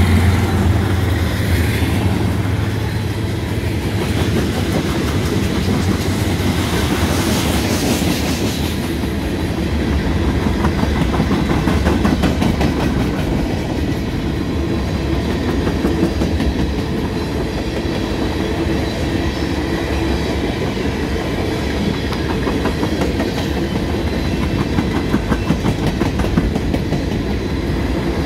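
A mid-train CSX diesel locomotive passes close by with a deep engine hum that fades after the first few seconds. Then a long line of freight cars rolls by with a steady rumble and a rapid clickety-clack of wheels over the rail joints.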